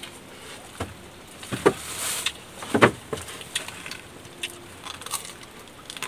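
Someone eating noodles with wooden chopsticks: a run of sharp clicks and knocks from the chopsticks and bowl, the loudest nearly halfway through, with a short hiss of eating noise around two seconds in.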